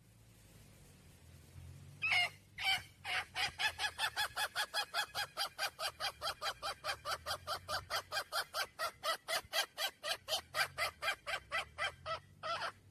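Hen calling to a rooster: a long, rapid, evenly paced series of short calls, about five a second. It starts with a few spaced calls about two seconds in and ends with one last call near the end.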